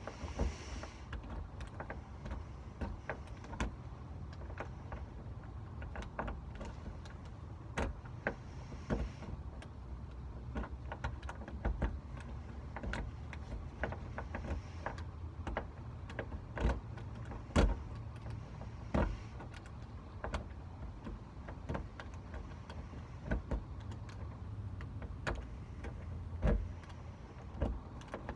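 Irregular metallic clicks and taps of locksmith tools working a corroded, long-unused door lock, over a steady low rumble.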